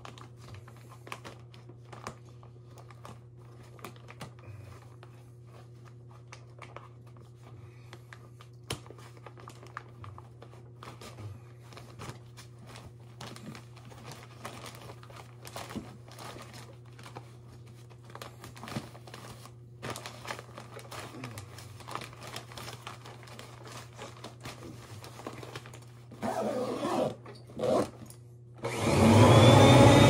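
Paper vacuum bag rustling with small clicks as it is fitted into a Hoover Conquest upright. Near the end the vacuum's motor is switched on twice for a moment, then starts and keeps running loudly, its pitch rising as it spins up.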